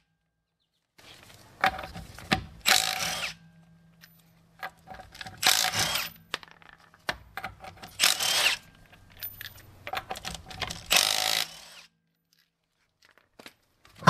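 Milwaukee FUEL cordless impact wrench hammering in about six short bursts, spinning the lug nuts off a car wheel one after another.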